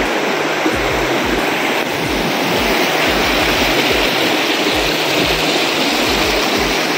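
Rapids of a rocky river rushing over boulders: a steady, even rush of water.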